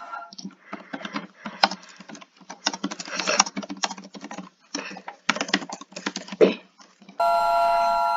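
Rapid, irregular clicking and tapping for about seven seconds, in uneven clusters with short pauses. It cuts off abruptly when a steady multi-tone emergency alert signal comes back in near the end.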